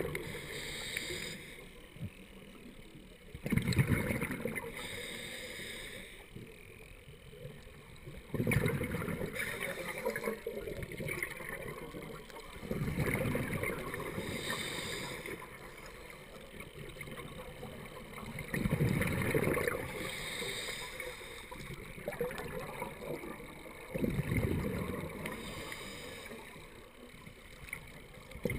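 Scuba breathing through a regulator underwater: a loud rush of exhaled bubbles about every four to six seconds, with a fainter hiss of inhaling between them.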